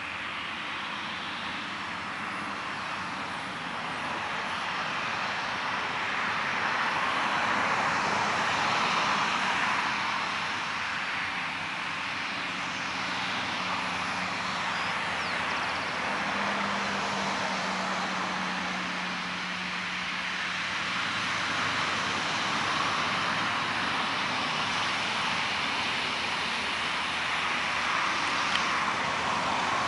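Jet aircraft noise: a steady rushing hiss that swells about a quarter of the way in, with a low steady hum joining in the middle.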